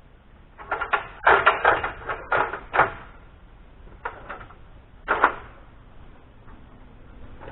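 Wooden knocks and clatters from a pine 2x6 board being handled and set into place: a quick cluster of knocks over the first few seconds, then two single knocks.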